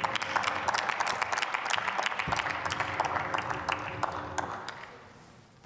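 Scattered applause from members in the parliamentary chamber, many hands clapping irregularly, thinning out and dying away about a second before the end.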